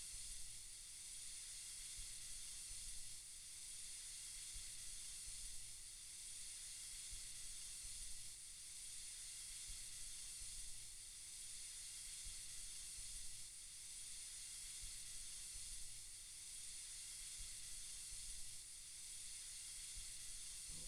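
Soft, steady white-noise hiss with gentle swells about every two and a half seconds.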